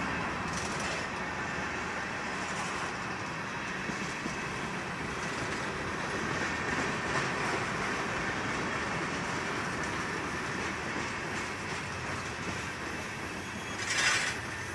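Freight train cars rolling past on the rails: a steady rumble of wheels on track, with a short, sharper hiss near the end.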